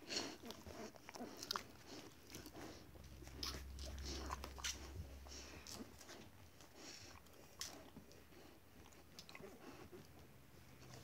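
An Akita Inu dog chewing a bread stick: irregular, close crunches and bites as she eats small pieces fed from a hand.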